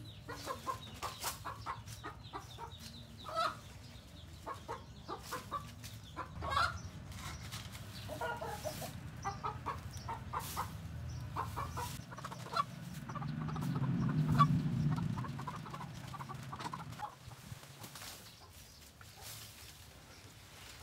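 Chickens clucking again and again, with a low rumble that swells and fades about two-thirds of the way through.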